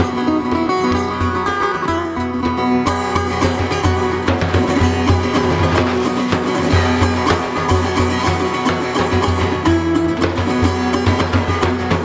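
Live duet of setar and daf: many quick plucked notes on the long-necked Persian lute over a steady pulse of strokes on the large frame drum.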